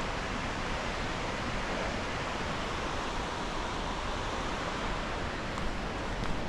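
Steady rush of white water from a mountain creek cascade, an even hiss with no change in level.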